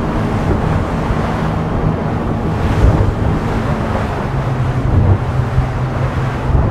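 A boat's engine running under wind buffeting the microphone and water rushing and slapping along the hull as the boat crosses the swells side-on, rocking side to side. The engine note steps up a little about four seconds in.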